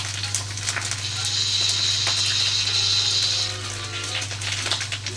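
A red-hot poker hissing in ale to mull it, a sizzle lasting about two and a half seconds that starts about a second in, over the steady hum and crackle of an old film soundtrack.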